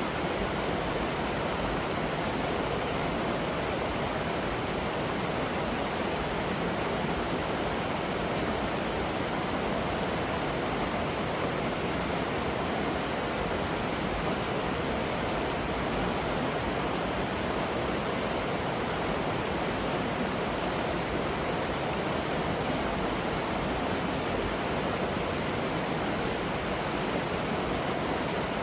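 Waterfall running steadily, an unbroken rush of falling water.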